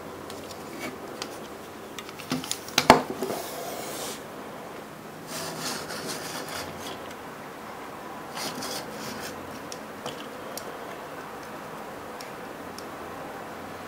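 Plastic LEGO roller model being handled: a clatter of small clicks and one sharp knock about three seconds in as it is set down on a wooden tabletop, then bursts of scraping and rubbing as its wheels and drum are pushed along the wood.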